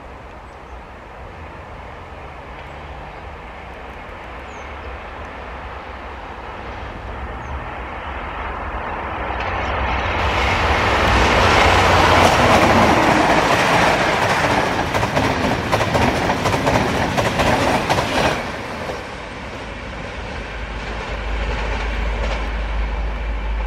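MÁV Class 431 (V43) electric locomotive hauling an InterCity train, passing at speed: a rumble that grows steadily louder as it approaches, then rapid wheel clatter over the rail joints as the loco and coaches go by. The sound drops sharply about three-quarters of the way in, leaving a lower rumble of the train going away.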